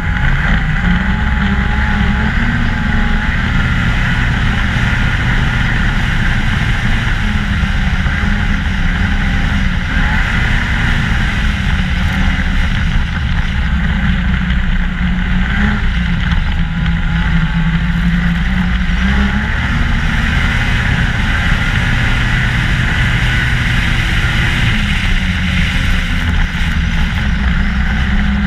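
2014 Ski-Doo MXZ 600 snowmobile engine running at trail speed, heard from on the sled, its pitch rising and falling a little with the throttle over a constant rush of noise.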